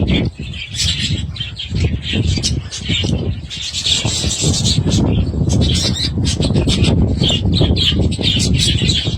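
Budgerigars chirping and chattering in quick, continuous high calls over a steady low rustling noise.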